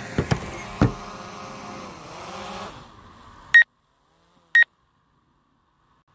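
Camera drone's propellers whining as it comes down to land, with two sharp knocks about half a second apart near the start and a brief dip in pitch. About three and a half seconds in the whine cuts off abruptly, followed by two short high beeps a second apart.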